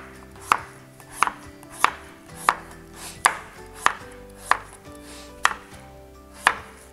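Chef's knife chopping skin-on kabocha squash into cubes on a cutting board: even, regular chops about every two-thirds of a second.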